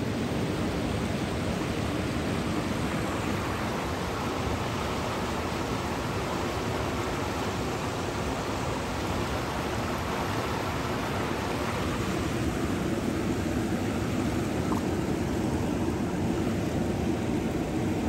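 River water rushing through shallow rapids: a steady, even rush of flowing water.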